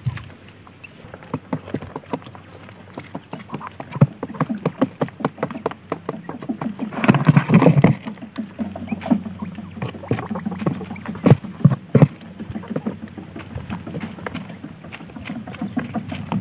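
Quail pecking and scratching at sandy ground and cardboard: irregular sharp taps all through, crowding into a loud flurry about seven seconds in.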